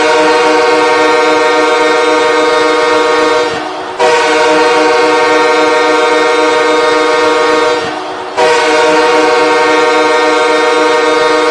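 Los Angeles Kings arena goal horn blowing three long, loud blasts of about four seconds each, with short gaps between them, each a steady chord-like tone.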